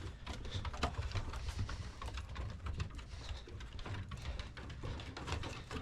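Footsteps and dog claws while walking dogs: a run of irregular light taps and clicks over a low rumble.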